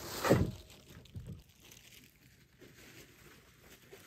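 Plastic shopping bags rustling and crinkling as camping gear is handled and loaded into a pickup's canopy, with a short louder bump near the start.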